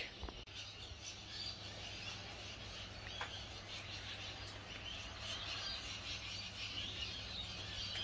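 Faint chirping of small aviary birds over a low steady hum.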